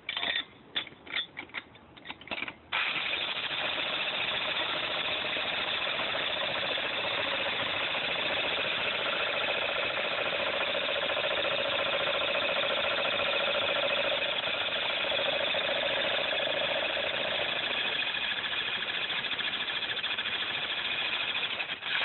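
Bosch corded electric jackhammer breaking up concrete: several short bursts in the first few seconds, then running continuously.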